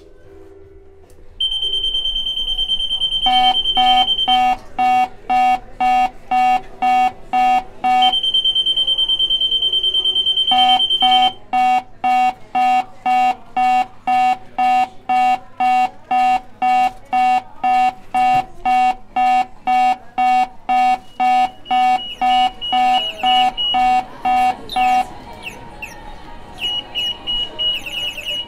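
Shop anti-theft security gate alarm going off: a steady high-pitched tone, then a pulsing beep at about two a second, switching back to the steady tone and then to pulsing again. Near the end it turns fainter, with short broken high beeps.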